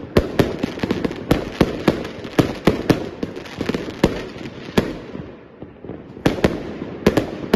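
Fireworks going off: a rapid, irregular string of sharp bangs over a continuous rumbling crackle. The bangs thin out briefly past the middle, then pick up again near the end.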